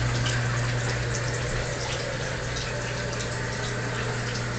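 Steady rushing noise with a low, even hum under it and a few faint scattered ticks.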